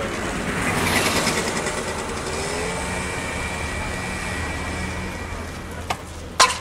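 Steady rushing outdoor street noise, like passing traffic, swelling about a second in and then easing off, with a couple of sharp clicks near the end.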